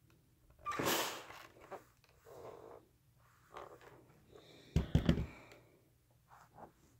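Steam iron letting out a short hiss of steam about a second in while pressing the quilt binding, followed by softer fabric and handling noises and a thump about five seconds in.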